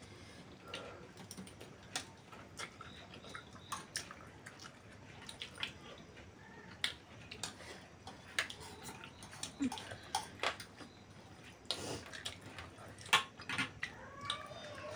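Close-miked eating sounds: wet chewing and lip smacks on spicy noodles and fried chicken, with many irregular sharp clicks.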